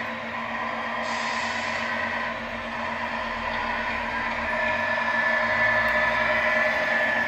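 Simulated truck engine sound from the Tamiya MFC-01 sound unit in a 1/14 RC Scania R620, playing through the model's small speaker as it drives. A brief hiss comes about a second in, and about four and a half seconds in the engine note climbs and gets louder.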